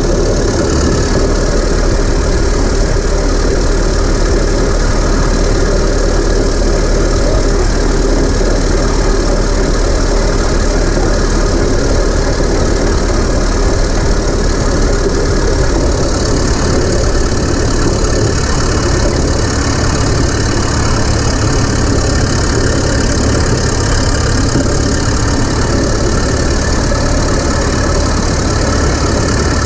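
Caterpillar D7 3T crawler dozer's four-cylinder diesel engine running steadily as the dozer drives across the field.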